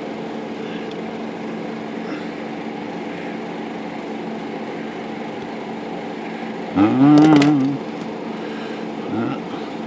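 Steady hum of an air conditioner or fan, with a short wavering vocal murmur from a person about seven seconds in and a fainter one near the end.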